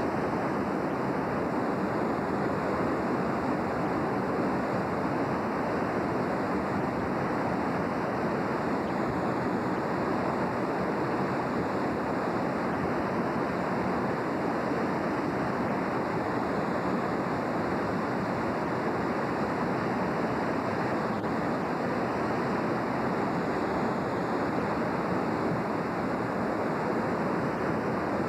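A river in full flood, its water rushing steadily and without a break.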